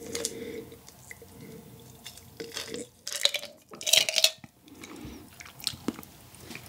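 Drinking from a glass: swallowing gulps, then a few louder sharp sounds around three to four seconds in, and a couple of light clicks near the end as the glass is set down on the table.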